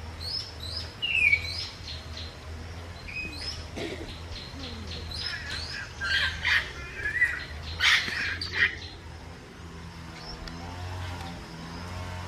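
African grey parrots calling: a run of short, sharp whistles and chirps, some sweeping down in pitch, loudest a little past the middle, then dying down, over a steady low hum.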